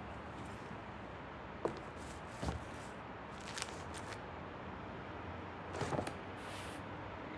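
Quiet office room tone with a few soft knocks and rustles of papers and small objects being handled on a desk.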